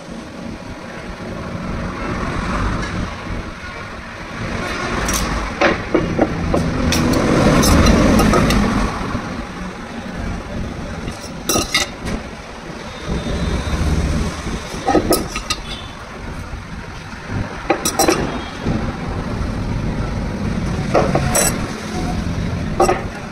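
Scattered sharp clinks and taps of metal: square tube, a flat metal square and a tape measure handled and set down on a wooden workbench while the tube is measured and marked, over a steady background rumble.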